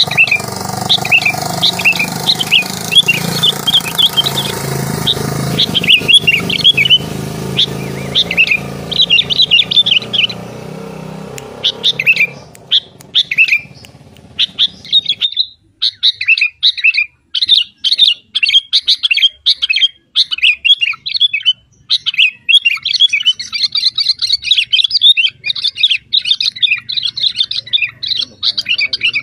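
A bird chirping and twittering in quick, repeated calls. A steady low rumble sits behind it for about the first half and then cuts off suddenly.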